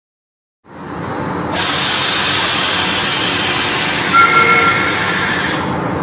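A loud, steady hiss like escaping steam, fading in just under a second in and growing brighter about a second and a half in. A short, high whistle tone sounds over it a little past four seconds in.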